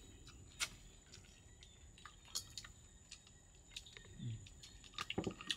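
Faint, scattered clicks and smacks of people chewing and eating at close range, with a brief low voice sound about four seconds in and a cluster of clicks near the end.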